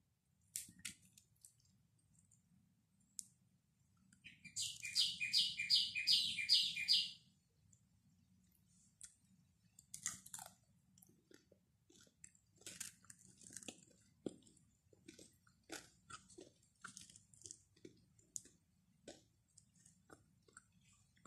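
Close-up chewing of flatbread, with soft mouth clicks and crackles off and on throughout. About four seconds in, a loud run of about eight quick high chirps lasts under three seconds.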